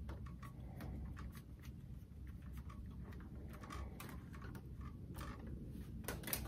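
Light plastic and metal clicks, taps and rattles of a ring light being turned on its mount and its tripod stand being handled, scattered throughout, with a louder cluster of clicks near the end.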